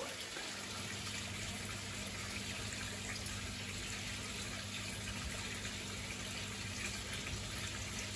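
Steady running water in a koi fry tank set-up, over a low steady hum from its pump.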